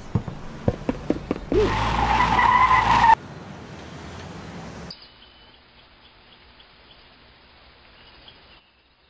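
Cartoon sound effects: a run of quick taps, then a loud screeching noise about a second and a half in that stops abruptly after about a second and a half. A quieter steady hiss follows and fades to near silence near the end.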